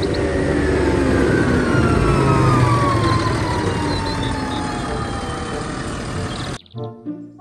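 Large farm tractor's diesel engine running as the tractor drives and turns, with a whine that falls slowly in pitch. About six and a half seconds in it cuts off suddenly to music.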